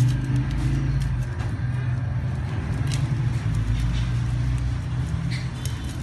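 Steady low mechanical rumble with a few faint light clicks.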